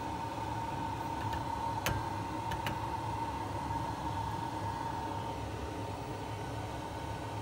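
Gas stove burner flame running steadily under an enamel mug, a low rumbling hiss with a steady high tone over it. A few light clicks come about two seconds in.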